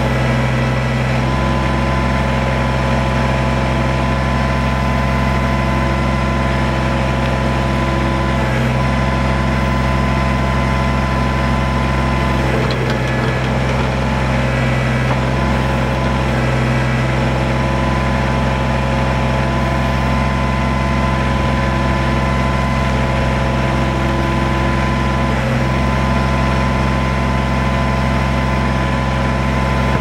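Kubota BX23S's three-cylinder diesel engine running steadily while its backhoe digs a trench in hard shale, the engine note shifting briefly a few times as the boom and bucket work.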